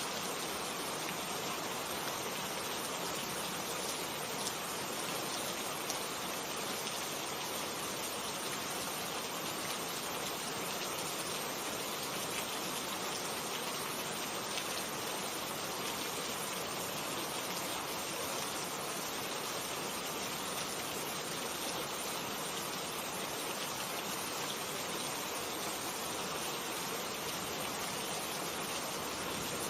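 Steady heavy rain falling, an even hiss of drops with an occasional slightly louder drop.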